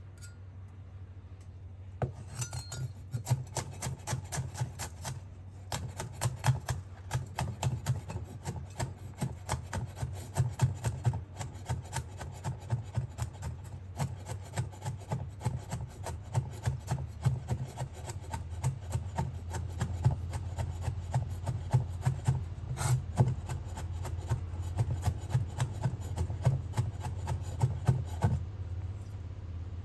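Garlic being minced with a large kitchen knife on a bamboo cutting board: quick, repeated knocks of the blade on the wood, several a second. The chopping starts about two seconds in and stops near the end, over a steady low hum.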